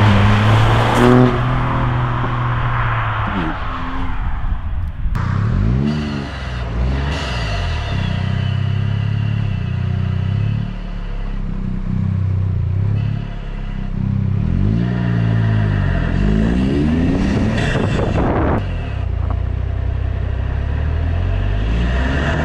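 Tuned Toyota GR Yaris turbocharged 1.6-litre three-cylinder with an Aulitzky exhaust, driven hard: the engine note climbs and drops back several times as it revs and shifts.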